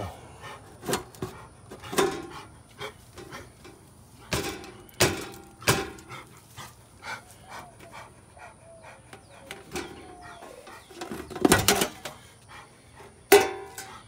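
An agitated dog barking repeatedly in separate sharp barks, with a quick cluster of barks near the end.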